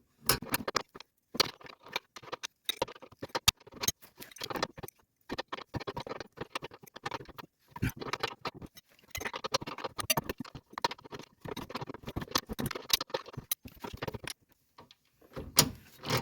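Adjustable crescent wrench working a tight 22 mm nut with no room for a socket: irregular metallic clicks and clinks as the wrench is repositioned and turned in short strokes, with a brief pause near the end.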